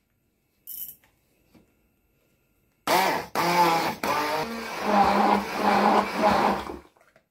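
Hand-held stick blender puréeing cooked pumpkin and eggs in a plastic beaker. It starts about three seconds in, cuts out briefly twice at first, then runs with its motor pitch sagging and wavering, and stops just before the end.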